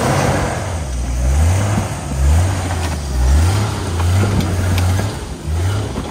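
Jeep engine revving up and down repeatedly as the throttle is worked, its pitch rising and falling about once a second.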